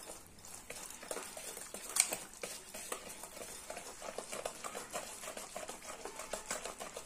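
Wire whisk beating thick semolina-and-yogurt batter in a stainless steel bowl: a quick run of light clicks and wet scrapes as the wires knock the bowl, with one sharper clink about two seconds in.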